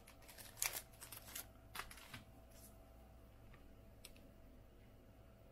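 Faint rustling and a few light clicks of plastic penny sleeves being handled as a trading card is sleeved, mostly in the first two seconds, with one more click about four seconds in.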